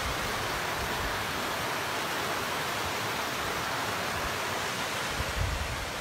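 Whitewater of a mountain river rushing steadily over rocky rapids below a bridge.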